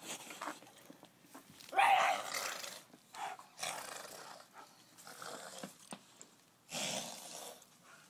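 Dogs growling during rough play, in several short rough bursts, the loudest about two seconds in.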